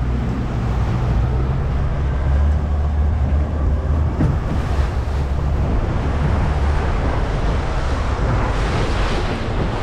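Wind buffeting the microphone and sea water washing around a boat, over a low steady rumble.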